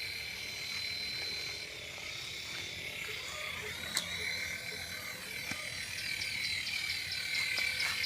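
Small electric toy helicopter's motors and rotors whining steadily, the pitch dipping and rising briefly around the middle. A single click about four seconds in, and a rapid ticking, about five a second, near the end.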